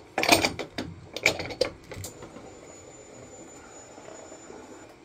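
Metal portafilter of a Schaerer Barista espresso machine clicking and clanking in the group head as it is worked loose, a quick series of sharp metallic knocks over the first two seconds, followed by a faint steady high-pitched whine.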